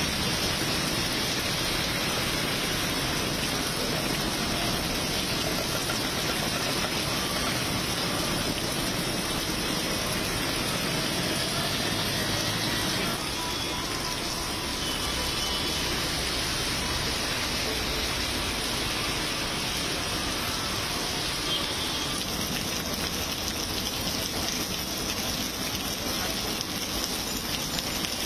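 Heavy rain pouring onto a waterlogged road, a steady hiss of water, with road traffic mixed in during the first half.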